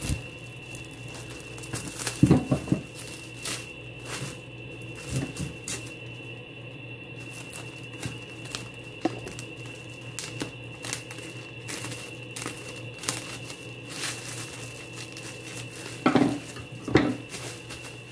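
Plastic cling film crinkling and rustling as it is wrapped around a stack of round breads, with scissors snipping the film. Louder rustles come about two seconds in and again near the end.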